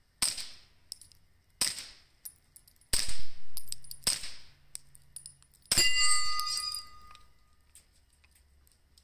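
Suppressed 9mm Ruger PC Carbine firing about five single shots over the first six seconds, spaced roughly a second or more apart. The last shot is followed by a brief high metallic ringing.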